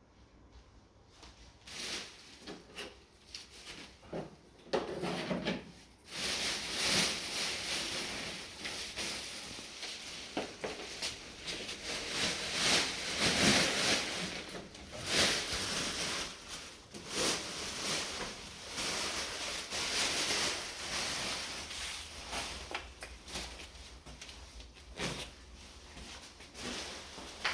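Irregular handling sounds from treadmill assembly: scraping, rustling and knocks as parts and packaging are moved about. The scraping is densest through the middle and thins out toward the end.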